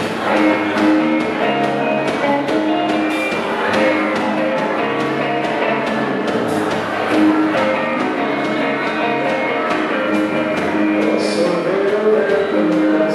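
A rock band playing a cover song, with a steady drum beat under held melodic notes.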